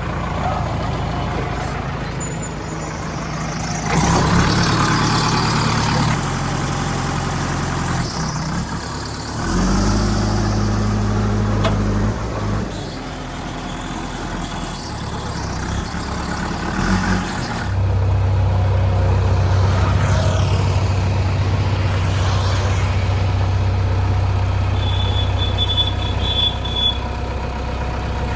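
Heavy diesel engine of the machines working to free the stuck tractor, running with its speed stepping up and down several times as it is throttled.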